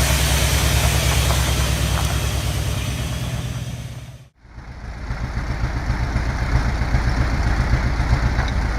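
Heavy diesel engine running steadily, fading out about four seconds in. Another engine then comes in with a fast, even pulsing.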